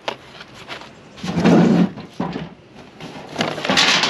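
Found objects being handled and moved about: a few sharp clicks, then two louder rattling, scraping bursts, one about a second in and one near the end.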